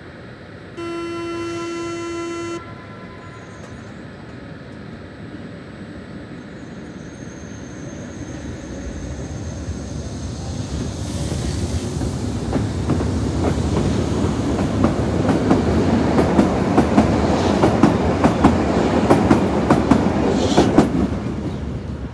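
Berlin U-Bahn train pulling out of an elevated station. About a second in there is a single steady warning tone of nearly two seconds. Then the electric train accelerates away, its wheel and rail noise building to a fast clatter of rail-joint clicks as the cars pass, and falling off near the end.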